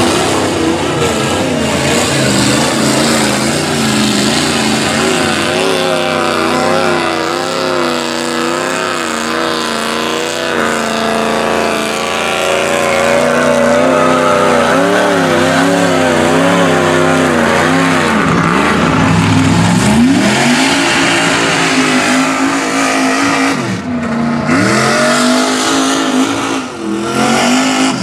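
Lifted mud trucks' engines revving hard as they push through deep mud, the pitch surging up and down over and over as the throttle is pumped. There are deeper dips and climbs in pitch in the second half.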